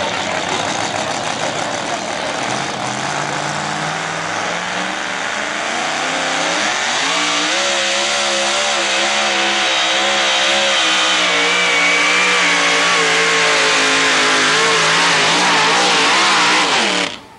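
Supercharged two-wheel-drive pulling truck engine at full throttle, hauling a weight-transfer sled. Its note climbs in pitch a few seconds in, holds high with a slight waver, and cuts off suddenly near the end, on a run that makes a full pull.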